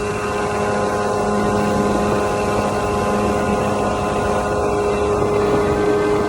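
Engine of a small Jerry mini motorboat running at a steady speed under way, an even drone that holds one pitch, over the rush of water and wind.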